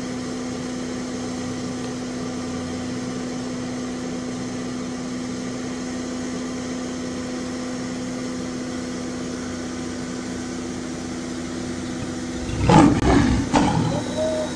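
Vehicle engine idling with a steady hum. Near the end comes a short, loud, low burst lasting under two seconds.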